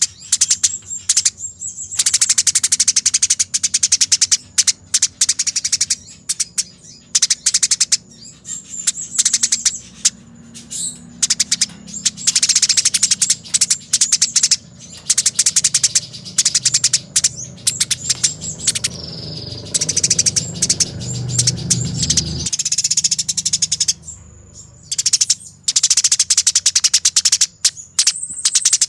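Eurasian tree sparrows in a fighting bout, giving long, fast, unbroken chattering trills with only a few brief pauses. A low background rumble underneath swells and then cuts off suddenly about two-thirds of the way through.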